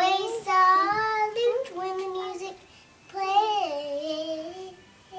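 Young child singing a simple song in three drawn-out phrases of held notes, with a short pause between them and a lull near the end.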